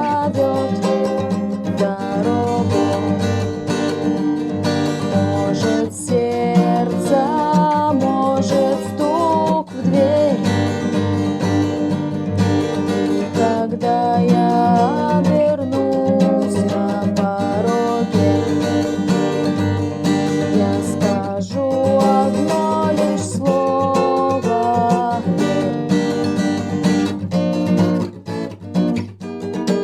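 Acoustic guitar strummed in chords, with a melody line moving over them: the wordless instrumental part of a song.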